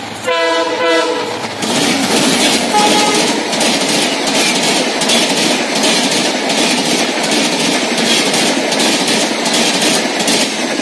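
A WDP4 diesel locomotive sounds its horn for about a second and a half. The express's coaches then rush past at speed, with a steady roar and a fast rhythmic clatter of wheels over the rail joints.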